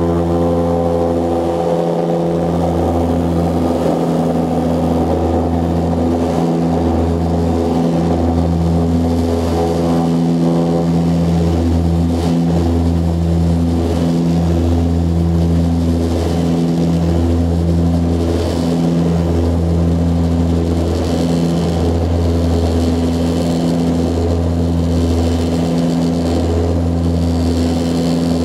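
Cabin drone of an Antonov An-24 in operation: its two Ivchenko AI-24 turboprop engines and propellers running steadily, heard from inside the cabin as a deep, even drone with several steady pitched hums.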